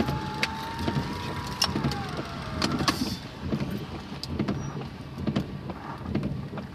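Inside a moving car: steady low engine and road rumble, with an electric window motor whining for the first couple of seconds, dropping in pitch as it stops, and scattered sharp clicks.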